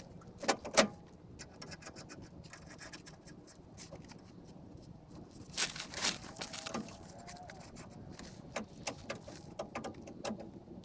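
Scattered clicks, taps and knocks of tools and metal parts being handled, loudest a little under a second in and again about six seconds in.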